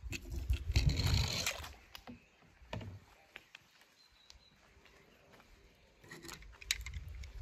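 Hand handling of a die-cast toy car: a brief rustling rumble at the start, then a few light clicks and taps of the toy on the board, with quiet in between.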